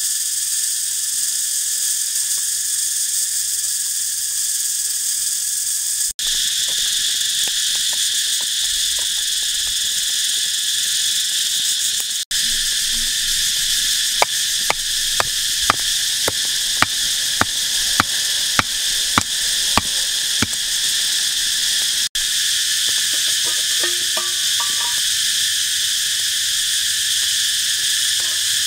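Loud, steady chorus of insects, shrill and unbroken. About halfway through, a run of about a dozen sharp knocks, roughly two a second, sounds over it.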